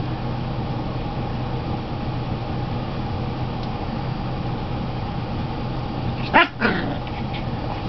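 Yorkshire–Silky terrier mix puppy gives a short, sharp double yip about six and a half seconds in, over a steady room hum.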